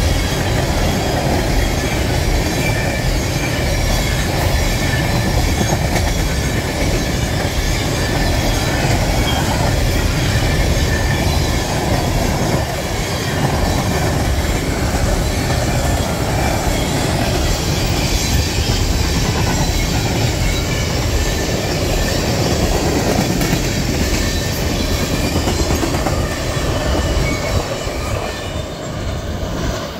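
Tank cars of a freight oil train rolling past at speed: a steady rumble and clatter of steel wheels on the rails, with a faint high wheel squeal. The sound eases off near the end as the last cars pass and the train draws away.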